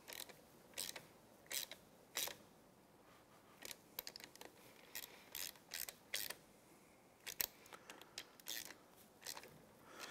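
Hand ratchet clicking faintly in short, irregular bursts, about two a second, as a socket runs down the bolts of an outboard's thermostat cover.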